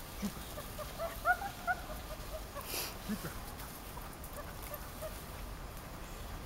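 Dog giving a few short, high whines about a second in, followed near the middle by a brief burst of noise.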